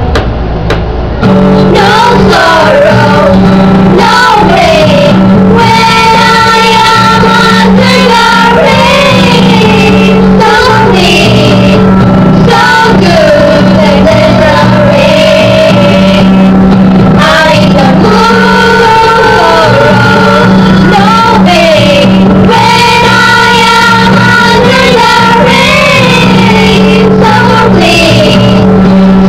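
Music with a singing voice over a steady low backing note that comes in about a second in.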